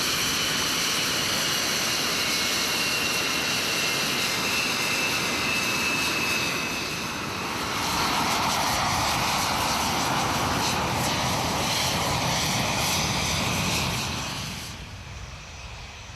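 English Electric Lightning T5's twin Rolls-Royce Avon jet engines running as the jet taxis past. A steady high whine whose pitch dips slightly gives way about halfway through to a louder, broader exhaust rush, which then fades away near the end.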